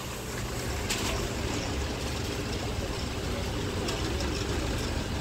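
Steady low hum of shop background noise, with a brief click about a second in.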